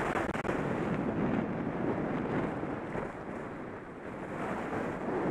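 Wind rushing over a helmet camera's microphone while skiing downhill, mixed with the hiss of skis on packed groomed snow. The rush swells and eases a couple of times.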